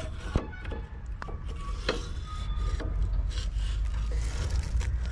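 Metal dB-killer baffle being slid out of a Rajdoot motorcycle's silencer by hand, scraping and rubbing against the inside of the pipe with scattered clicks and a few short squeaks.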